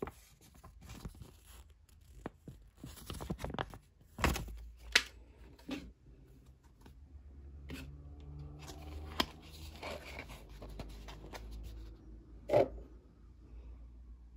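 Hands handling toy packaging: paper and plastic wrapper rustling and tearing, with scattered clicks and a few sharp knocks of a plastic egg shell.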